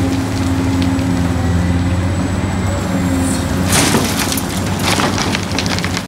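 Large Caterpillar hydraulic excavator running with a steady heavy engine drone. A little under four seconds in, its bucket dumps earth and rocks, which clatter and crunch into a dump truck's bed for a second or two.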